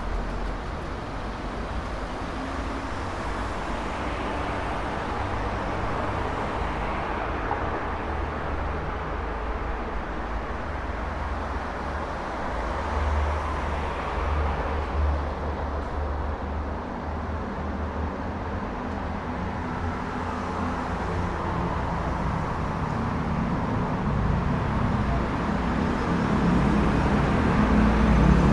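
Busy city street traffic: a continuous wash of cars and other vehicles passing, with a heavier low engine rumble building toward the end as a large vehicle draws near.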